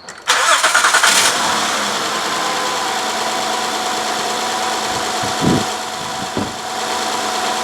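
2012 Honda Odyssey's 3.5-litre V6 cranking briefly and catching about a third of a second in, then idling steadily. It is running with a misfire that the swapped plug and coil carry into cylinder 4.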